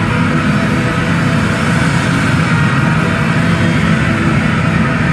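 Live post-rock band playing loud: a dense, steady wall of distorted electric guitars and low rumble.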